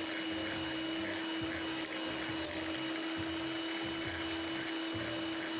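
Electric hand mixer running at a steady speed, its beaters whisking egg whites in a glass bowl, with one constant motor hum throughout; the whites are being whipped to stiff peaks.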